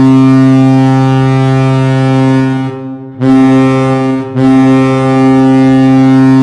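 Vegas Golden Knights' arena goal horn blowing: a loud, steady, low-pitched horn blast. It cuts out for about half a second around two and a half seconds in and again very briefly around four seconds in, then sounds on.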